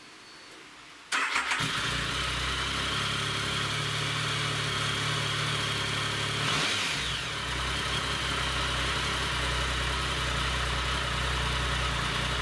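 Triumph Tiger 1050's three-cylinder engine on its stock exhaust, cranking on the starter and catching about a second in, then idling steadily. About halfway there is one brief rise and fall in revs.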